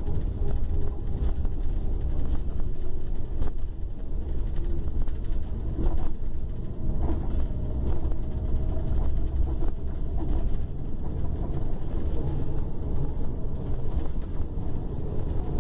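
A long-distance coach's diesel engine running steadily, a continuous low rumble with a faint tone above it and scattered light rattles.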